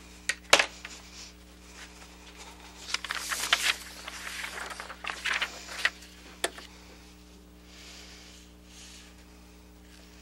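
A sheet of overhead-projector transparency being handled: two sharp clicks, then a few seconds of rustling and clattering as the sheet is laid on the projector, and one last click. A steady electrical hum runs underneath.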